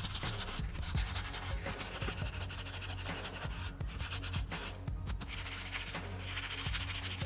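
Sandpaper rubbed by hand in quick short back-and-forth strokes over a small steel knife blade, a steady dry rasp. This is hand-sanding the flats of the blade up through the grits toward a mirror finish.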